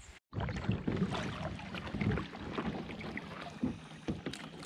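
Water lapping and sloshing around a kayak on calm water, with small irregular splashes and clicks, and wind rumbling on the microphone. It starts after a brief gap.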